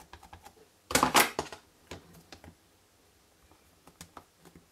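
Plastic clicks and clatter from a Stamparatus stamping platform and ink pad being handled. A few light taps, then a loud burst of clattering clicks about a second in, followed by a few scattered single clicks.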